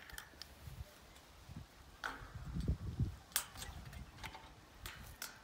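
Scattered metallic clicks and clinks of steel trampoline springs and their hooks as a spring is levered with a wooden tool and hooked onto the mat, with a low rumble a couple of seconds in.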